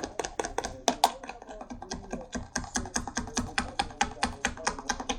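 A utensil stirring a shampoo-and-salt slime mixture in a bowl, clicking rapidly and unevenly against the bowl, about four to five clicks a second.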